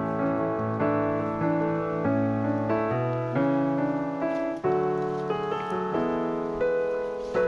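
Background piano music: a slow melody of held notes, changing every half second to a second.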